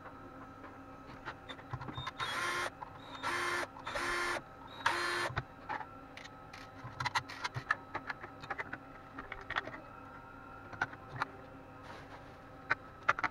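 Handling of a disassembled Eltek Flatpack power supply's metal case, circuit board and plastic insulating cover on a workbench: three short scraping slides between about two and five and a half seconds in, then a run of small clicks and taps.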